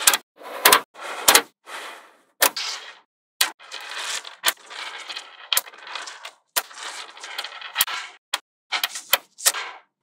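Small magnetic balls clicking sharply as strips of them snap together. In the middle there is a longer stretch of quick rattling clicks as rows of balls slide and roll into place against one another. More single snaps come near the end.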